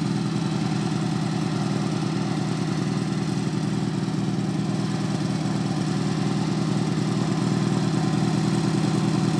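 An 18-horsepower garden tractor engine idling steadily.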